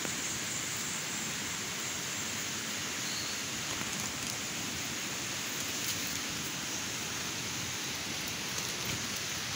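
Steady, even hiss of outdoor noise with a thin high band on top, unbroken and without distinct events.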